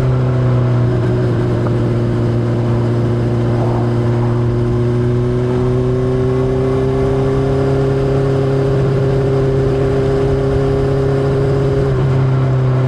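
Honda CBR600RR's inline-four engine through an Akrapovič exhaust, running at steady moderate revs while riding. The pitch creeps slowly upward as the bike gently gains speed, with a brief change in the note about a second in and again near the end.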